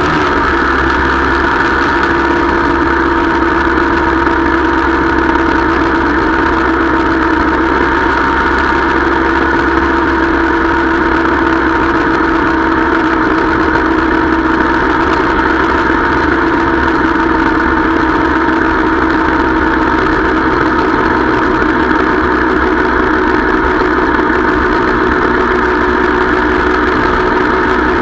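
Motorcycle engine running steadily at an even cruising speed, with a constant pitch throughout.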